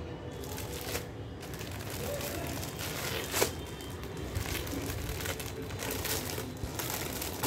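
Clear plastic packaging around a folded saree crinkling and rustling in irregular bursts as it is handled and pressed flat by hand, with one sharp crackle about three and a half seconds in.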